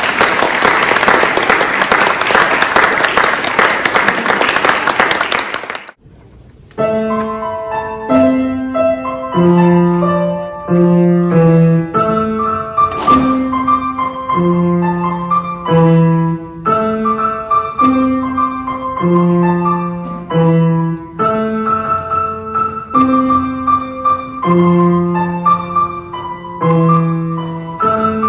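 Audience applause that cuts off abruptly about six seconds in. After a short pause, a grand piano plays a steady, repeating melody over low bass notes.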